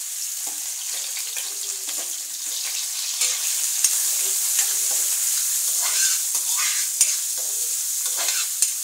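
Chopped onions sizzling in hot mustard oil in a metal kadhai, with a steady frying hiss while a steel spoon stirs them, scraping along the pan and giving several sharp clicks against it.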